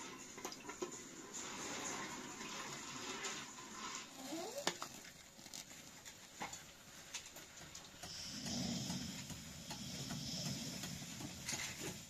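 A match struck to light a small burner on a camping gas cylinder: small clicks and scrapes, the loudest about halfway through, then a steady hiss from about eight seconds in.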